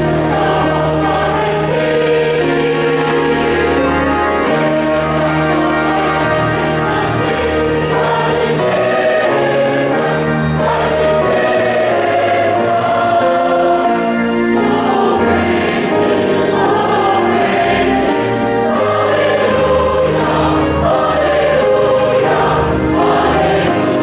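Mixed church choir singing a hymn in parts, over organ accompaniment holding steady low bass notes.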